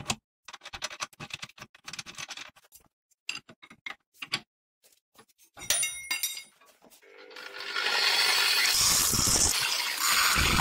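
Metal clicks and clinks as a steel roller is handled and fitted onto a bolt in a steel bench vise, with one sharp ringing clink near the middle. About seven seconds in an angle grinder spins up and runs steadily, its disc grinding the rim of the roller.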